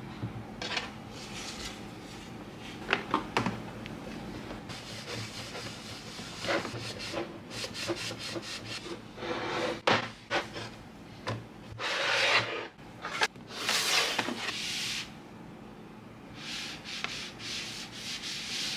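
Cloth wiping across a wooden desktop: irregular rubbing strokes, with a few short knocks along the way.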